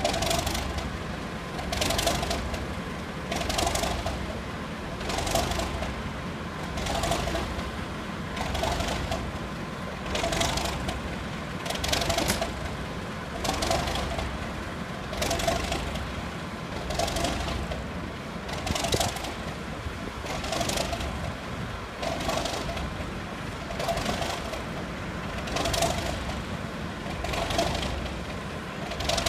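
Diesel shunting locomotive running, a low steady rumble with a regular pulsing beat about every second and three-quarters.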